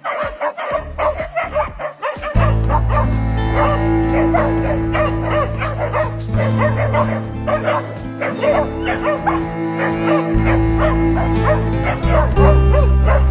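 Dog yelping and barking in short, rapid calls, about three a second, with background music and a steady bass coming in about two seconds in.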